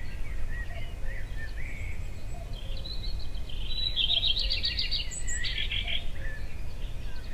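Songbirds chirping over a steady low rumble of outdoor background noise, with a quick trill of repeated notes about four seconds in.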